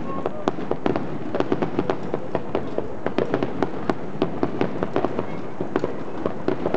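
Fireworks display going off: a rapid, irregular string of bangs and crackles, several a second.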